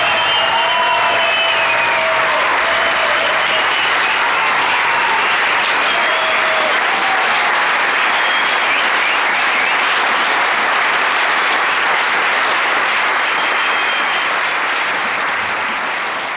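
Audience applauding steadily after the final song, with a few voices calling out over the clapping. The applause begins to fade near the end.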